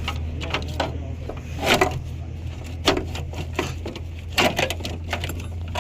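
Irregular clicks, knocks and rattles of a truck's wiring harness, couplers and fuse box being handled and worked loose, with two louder knocks about two seconds and four and a half seconds in. A steady low hum runs underneath.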